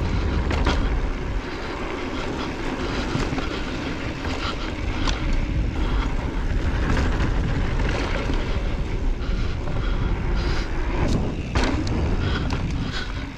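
Wind buffeting the microphone over the rolling rumble of a 2020 Specialized Enduro Comp mountain bike's tyres on a dry dirt trail, with scattered clicks and rattles from the bike.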